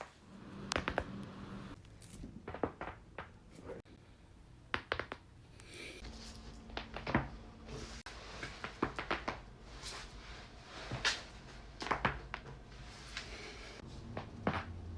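A person's back being cracked: a series of sharp cracks and pops from the spine's joints, some single and some in quick clusters of several, coming every second or two.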